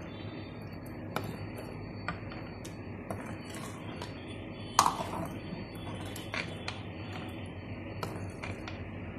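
Metal ladle stirring a thick curry in a large metal pan, scraping and knocking against the pan now and then, with one sharper clink about five seconds in.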